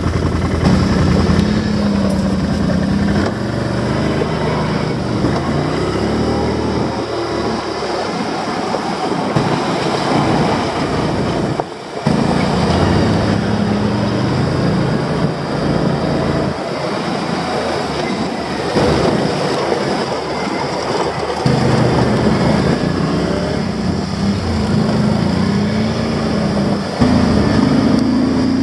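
Automatic ATV engine running as it is ridden along a rough dirt trail, its pitch rising and falling with the throttle over a steady rushing noise. There is a brief drop in level about twelve seconds in.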